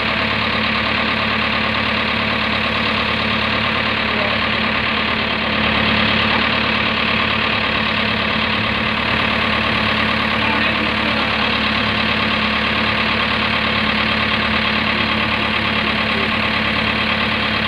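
JCB 3DX backhoe loader's diesel engine idling steadily at close range, getting a little louder about six seconds in.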